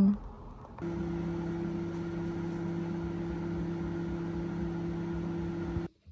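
Microwave oven running with a steady hum as it heats food, starting about a second in and cutting off suddenly near the end.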